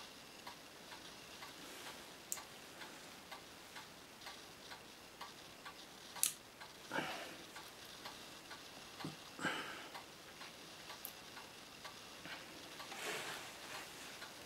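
Metal clicks and handling noise from a stainless Ruger Old Army cap-and-ball revolver being turned and worked in the hands. The sharpest click comes about six seconds in, with brief scrapes around it, all over a faint steady ticking of about two a second.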